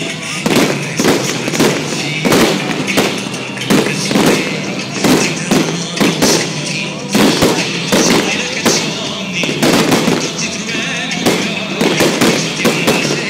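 Aerial fireworks bursting in a steady string of sharp bangs, about two a second, with music playing underneath.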